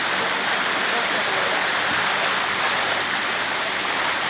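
Steady, dense splashing of water as a crowd of Nile tilapia thrash at the surface inside a drawn-in seine net.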